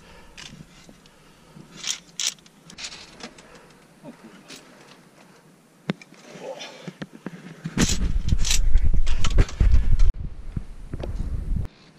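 Scattered sharp clicks and scrapes of via ferrata gear: carabiners and lanyards on the steel safety cable. About eight seconds in, a loud low rumble starts, lasts about four seconds and cuts off suddenly.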